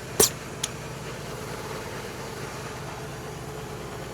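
A steady low machine hum, like a motor running, with a sharp click about a quarter-second in and a smaller click about half a second later.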